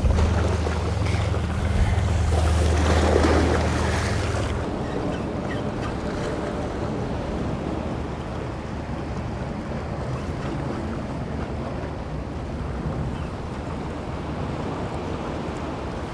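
Small ocean waves washing against the rocks of a jetty, a steady wash of surf. Wind rumbles on the microphone for about the first four seconds, then drops away.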